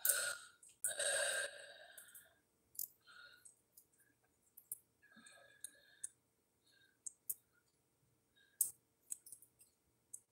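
Small clicks and clinks of a beaded charm bracelet being handled in the fingers, scattered and irregular, with a brief breathy noise about a second in.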